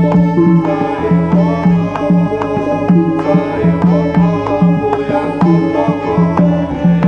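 Live Javanese gamelan music: hand-drum (kendang) strokes in a quick rhythm over struck, ringing gong-chime and metallophone notes that repeat about twice a second.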